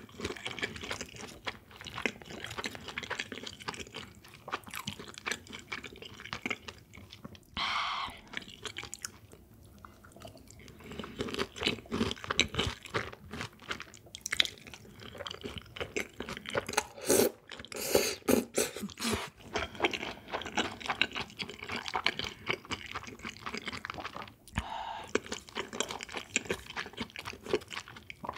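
Close-miked chewing and crunching of food: a steady run of small wet mouth clicks, louder for a few seconds a little past halfway.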